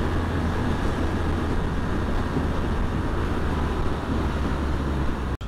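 Motorcycle on the move, engine hum and wind noise on the microphone running steadily, with a brief dropout near the end.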